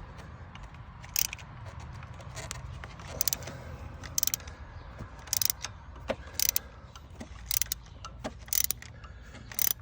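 Socket ratchet wrench with a 5/8-inch spark plug socket clicking in short bursts about once a second as the handle is swung back and forth, unscrewing a spark plug.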